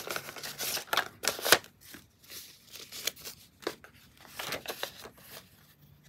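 US paper dollar bills being counted by hand: quick crisp rustles and flicks of the notes slipping through the fingers, with the sharpest snap about a second and a half in.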